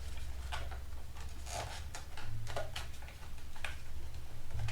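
Styrofoam packing rubbing and scraping against the microphone as it is worked out of the box: irregular short scrapes and knocks, over a steady low hum.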